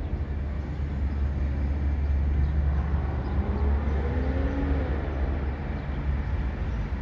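Steady low engine rumble, with an engine tone that glides up and then down in pitch about three to five seconds in.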